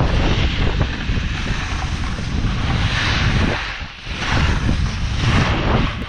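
Wind buffeting a pole-mounted action camera's microphone as a snowboard rides down the slope, with the hiss of the board scraping over the snow swelling and fading several times through the turns.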